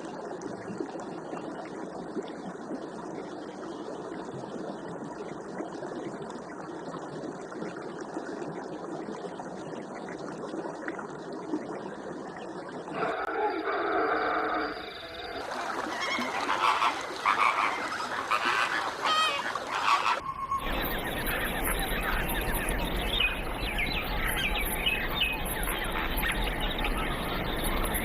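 Wild-animal sounds from several clips spliced together, changing abruptly about 13, 15 and 20 seconds in; the first half is a dense, steady chorus of short animal calls.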